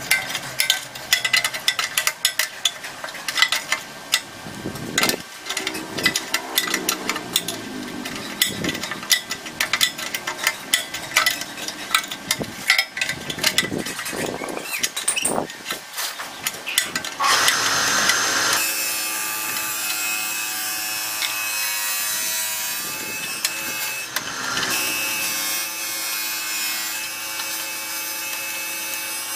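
Quick metal clicks, clinks and scrapes of rusted steel brackets and an open-end wrench being worked on their bolts. A little past halfway this gives way to a steady rasping mechanical noise with a tone in it.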